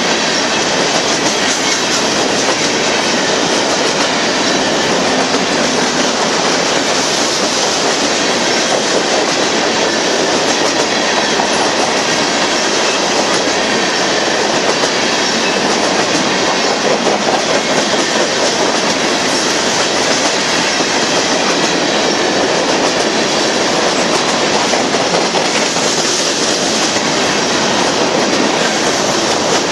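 Loaded freight hopper cars of a Union Pacific train rolling steadily past, a continuous rumble and rattle of steel wheels on rail, with the wheels clicking over the rail joints.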